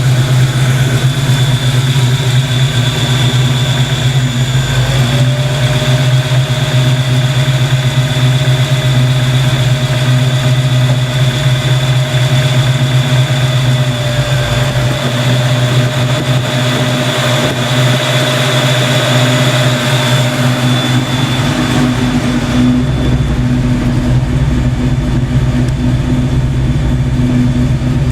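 Fox Body Mustang engine idling steadily, with a steady high whine over it. About three-quarters of the way through, a rushing layer of noise over the engine eases off.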